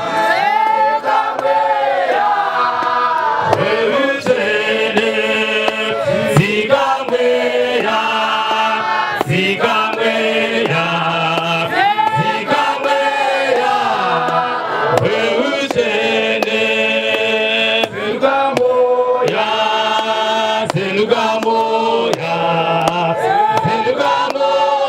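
A congregation singing a church chorus together, many voices carrying a repeated melody with no break.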